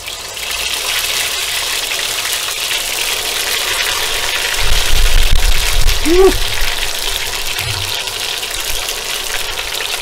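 Batter-coated potato patties (vada) deep-frying in hot oil: a loud, steady sizzle that starts as they go into the fryer. Around the middle there is a brief low rumble and a short voiced "ooh".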